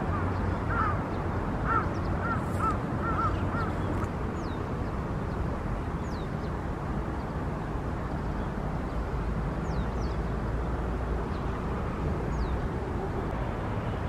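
Wild birds calling: a quick run of about eight short, arched calls in the first four seconds, then a few thin, high, falling whistles spaced a couple of seconds apart, over a steady low background rumble.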